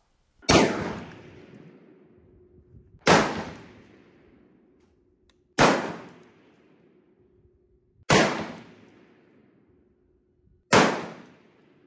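Springfield Armory M1A SOCOM 16 CQB semi-automatic rifle in 7.62 NATO firing five single shots, evenly paced about two and a half seconds apart, each with a fading echo.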